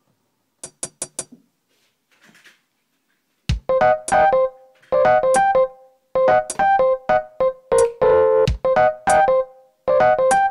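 Akai MPC1000 sampler finger-drummed live: four quick short hits a little under a second in, then, about three and a half seconds in, a dense, rhythmic pattern of pitched sample stabs with deep kick hits.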